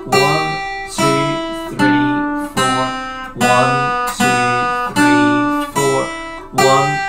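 Steel-string acoustic guitar playing a slow beginner blues melody of single plucked notes on its top two strings. The notes come one to a beat at a steady pace, about one every 0.8 seconds, each ringing until the next.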